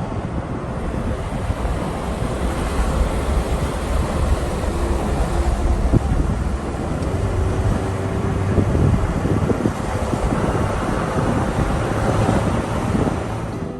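Steady rush of wind and road rumble inside a moving car, with wind buffeting the microphone.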